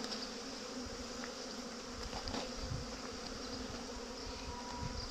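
Honeybees buzzing in a steady, even hum: a whole apiary in busy foraging flight around the hive entrances.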